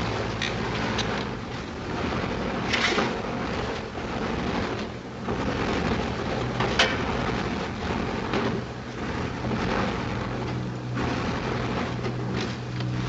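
Steady drone of a Wellington bomber's engines heard from inside the aircraft, with rushing wind noise and a few sharp knocks and clatters, the sharpest about seven seconds in.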